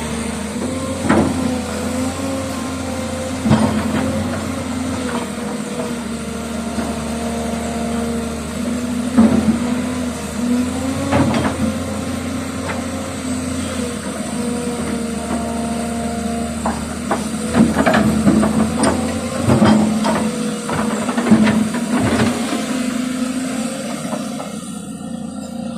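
Volvo EC210BLC excavator's D6D diesel engine running steadily, now starting again after its no-start fault was repaired. A steady hum shifts a little in pitch now and then, with scattered knocks and clanks, most of them in the second half.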